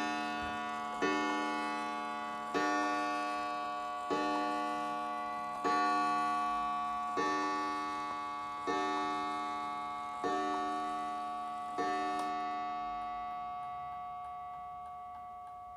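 Vintage Juba mantel clock striking twelve o'clock on its gong: a single ringing note struck about every second and a half, each blow dying away slowly. After the last blow, about twelve seconds in, the note fades out and the clock's tick can be heard.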